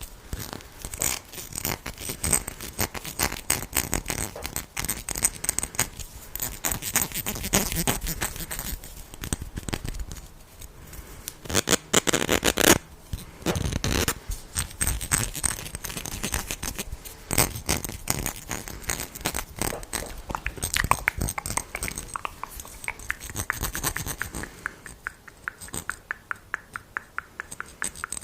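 Close-miked ASMR tapping and scratching: quick runs of taps mixed with scraping, with a louder, denser flurry of scratching about twelve seconds in.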